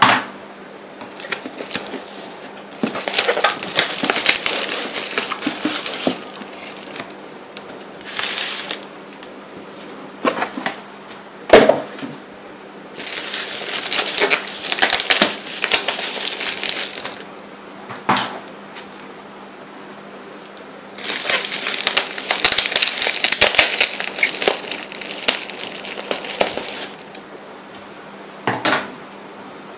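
Plastic bubble wrap crinkling and rustling in several bursts of a few seconds each as it is handled and pulled open, with a few short sharp knocks in between.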